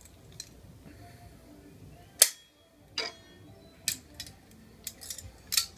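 Vise-grip locking pliers snipping stainless steel wire: one sharp snap about two seconds in, then several lighter metal clicks.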